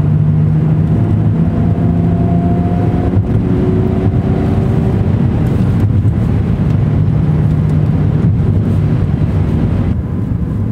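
Chrysler Crossfire's 3.2-litre V6 heard from inside the cabin while cruising, with steady road and tyre noise. The engine tone climbs slightly in pitch over the first few seconds, then evens out.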